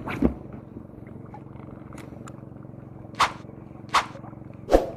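Spinning reel being cranked steadily on a light shore-casting rod, a low whirr with a fine fast rhythm, broken by a few short sharp knocks, three of them close together in the second half.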